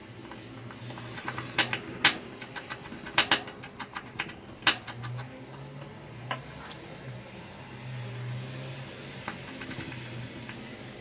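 Small precision screwdriver clicking against tiny screws and the plastic cover plate of a Samsung Galaxy S7 edge's frame: irregular sharp clicks, busiest in the first half, then only a few.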